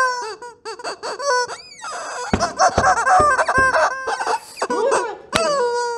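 Squeaky cartoon sound effects: a string of short warbling squeaks and squeals, with a few low thumps between about two and four seconds in and a longer held squeal near the end.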